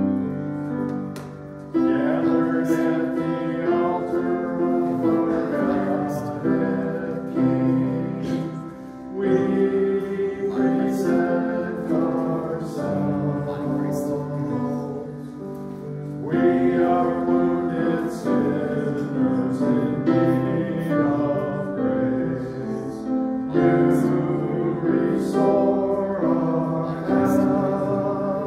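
Church hymn sung by voices with instrumental accompaniment, line by line with short breaks between phrases.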